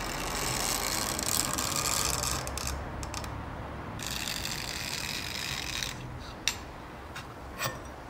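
An 80CrV2 steel knife blank rubbed back and forth by hand on abrasive paper: a scratchy rasping in two long spells with a short pause between. It ends in a few light clicks as the steel is set down and handled.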